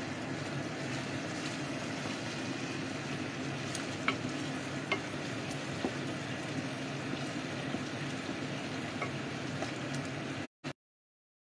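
Pork adobo frying and sizzling in its reduced soy-vinegar sauce in a pot, with a few sharp clicks of a wooden spatula against the pot as it is stirred and a low steady hum underneath. The sound cuts out abruptly near the end.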